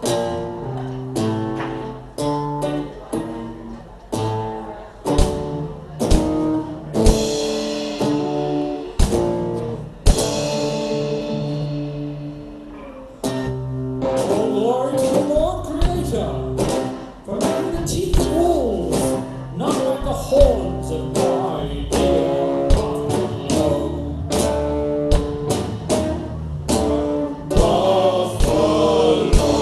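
Live band playing: drum kit, acoustic and electric guitars, with cymbal crashes ringing out about seven and ten seconds in. A voice comes in singing about halfway through.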